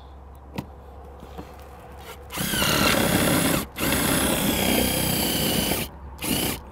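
Power drill driving a self-tapping screw down through a satellite dish's base plate into the plate beneath. The motor whines up and runs under load, pauses briefly, runs again for about two seconds, then gives a short final burst.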